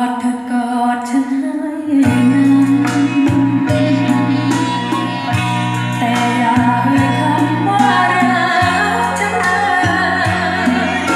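Song with a singer and a steady beat, played back from cassette on a Pioneer CT-W511R double cassette deck and heard through loudspeakers.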